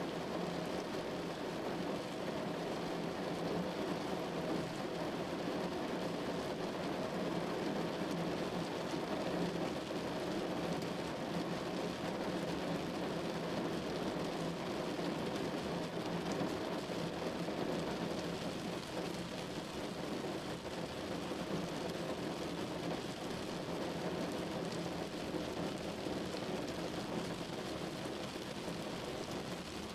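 Steady rain falling on a window pane: an even, unbroken patter and hiss with no separate strikes.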